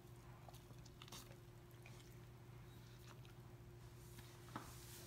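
Great Dane chewing a soft Pupperoni treat: faint, scattered mouth clicks and smacks over a steady low hum.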